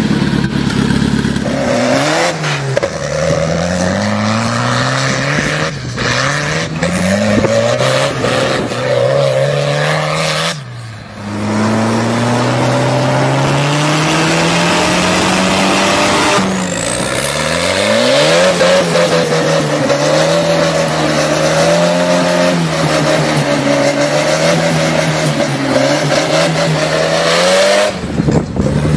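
Tractor's turbocharged Volvo engine revving hard over and over, its pitch climbing and dropping with each rev. It comes in several spliced runs that break off suddenly.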